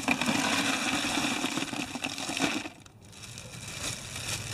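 Ice cubes poured into a plastic tub, a dense clattering rattle that stops briefly a little over halfway through, then goes on more softly.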